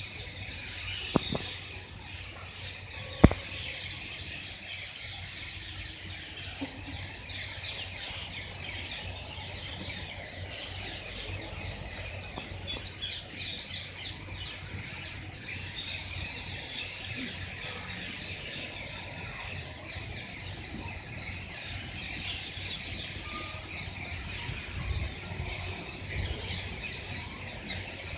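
Indian ringneck parakeet chirping and screeching in a continuous stream of short calls. Two sharp clicks come near the start, the second, about three seconds in, the loudest.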